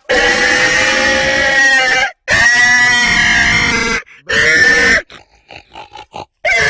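A man imitating a pig with his voice through cupped hands: three long pig calls, the first two about two seconds each and the third shorter, then a few short clicks, and another call starting near the end.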